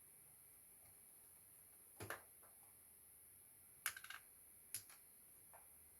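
Quiet background with a few short, sharp clicks of small hard objects being handled: one about two seconds in, a quick cluster of clicks near four seconds, another just before five seconds and a faint tap shortly after.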